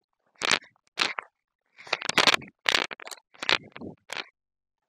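Footsteps crunching on dry grass and pine litter: a string of short crunches about every half second as a walker climbs a slope.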